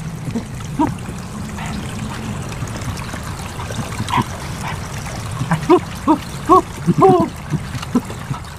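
Slurping and drinking coconut water straight from an opened green coconut, with a run of short pitched gulping sounds about two-thirds of the way in.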